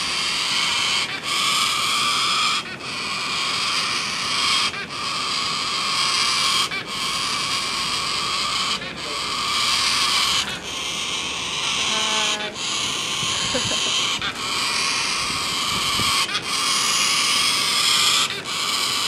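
Sulphur-crested cockatoos screeching: long, harsh, raspy screeches one after another, with a short break roughly every two seconds.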